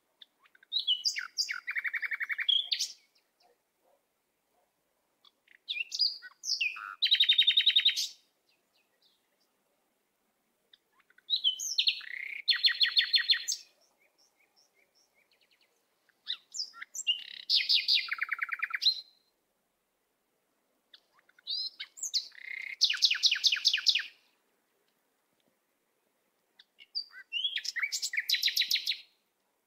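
A songbird singing in six phrases about five seconds apart, each a few short high notes followed by a fast trill.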